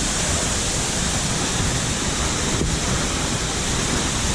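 A tall waterfall in heavy flow: a loud, steady, even rush of falling water.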